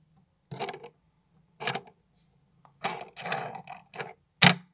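Handling noise close to the microphone: about five short rustles and scrapes as fingers work among a fan of makeup brushes, ending in a sharper, louder bump near the end.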